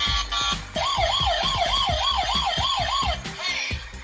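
Toy police car's electronic siren wailing quickly up and down, about three rises a second, over tinny electronic music with a steady beat. The siren stops about three seconds in while the music carries on.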